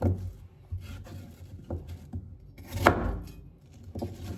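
Knife cutting an apple into pieces: four separate cuts, the loudest about three seconds in.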